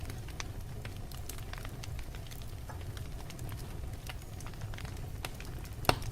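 Wood fire burning in a fireplace: scattered crackles over a low steady rumble, with one louder pop near the end.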